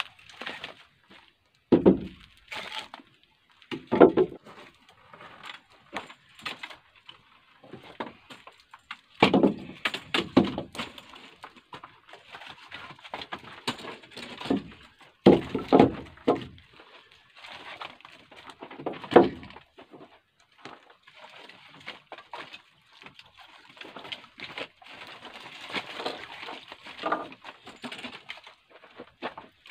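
Split birch firewood being picked from a woodpile by hand: logs knocking and clattering against each other in irregular bursts as they are pulled out and gathered into the arms.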